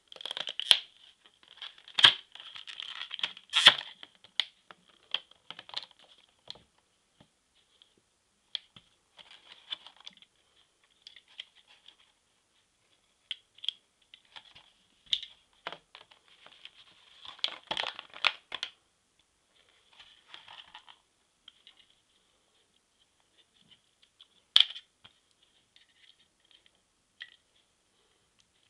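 Plastic blister packaging crinkling and tearing as it is opened, in irregular bursts, with scattered clicks and taps as the plastic dog repeller and its battery are handled; one sharp click late on.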